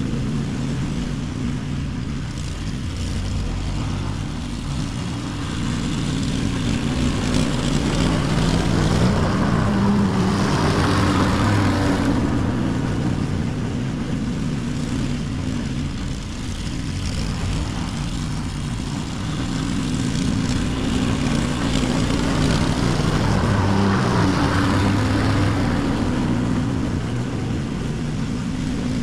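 Walk-behind lawn mower running steadily as it is pushed across the grass, cutting. The drone swells a little about ten seconds in and again near twenty-four seconds.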